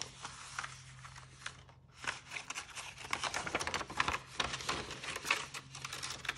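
Sheet of plain paper rustling and crinkling as it is handled and its cut circle is pushed through the fold, with a brief pause a little before two seconds in.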